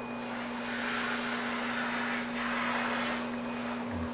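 Carpet-cleaning floor machine running with a steady motor hum while its damp microfibre scrub pad works the carpet, with swells of scrubbing hiss as it passes over the edge.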